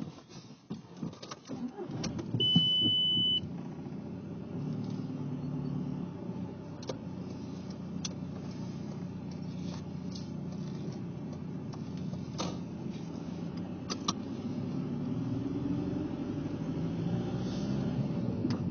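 Car running, heard from inside the cabin: a steady low engine and road rumble, with a single loud high beep of about a second just after two seconds in and a few light clicks. Near the end the engine note rises gently as the car speeds up.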